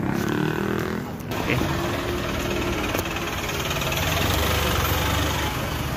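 Motor vehicle engine running steadily, getting slightly louder toward the middle.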